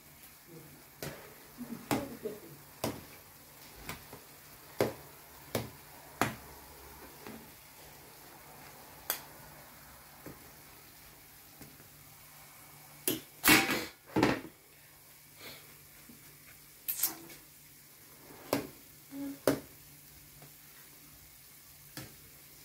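Puff puff dough balls deep-frying in a pan of oil with a faint, steady sizzle. Scattered sharp clicks and knocks come from a slotted spoon tapping the pan as the balls are turned, with the loudest run of them about two-thirds of the way through.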